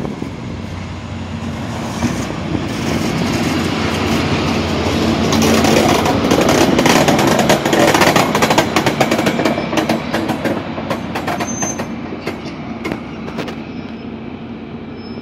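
Class 73 electro-diesel locomotive 73964 running on its diesel engine as it rolls slowly past at close range. It grows louder to a peak about halfway through, then eases off, with its wheels clicking over the rail joints.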